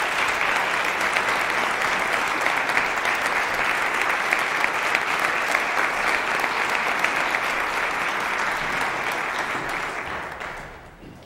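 Audience applauding: dense, sustained clapping that dies away near the end.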